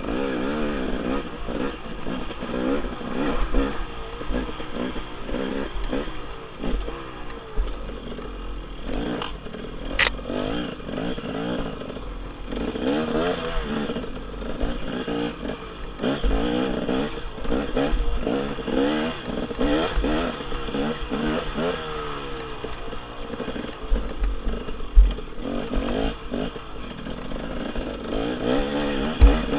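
Dirt bike engine revving up and down continually as it is ridden over a rough trail, with the clatter of the bike over bumps and a few sharp knocks, the loudest about 25 seconds in.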